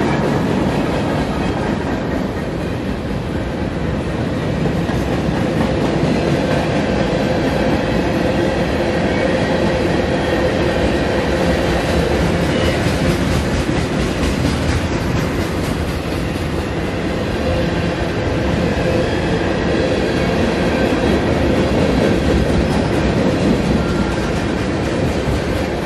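Freight cars of a mixed freight train, here a flatcar and tank cars, rolling past close by: a steady loud rumble and clatter of steel wheels on the rails.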